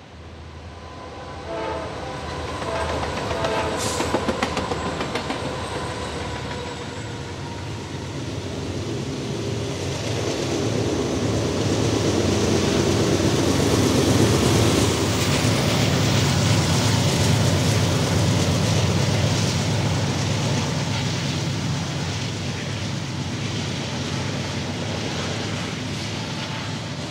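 Diesel freight train passing: a locomotive horn sounds over the first few seconds, then the engines' drone and the rumble of the wheels build to their loudest about halfway through and carry on as the train rolls by.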